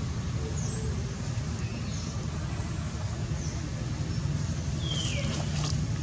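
Steady low hum of distant road traffic, with short, high, descending chirps repeating every second or so; the two loudest chirps come near the end.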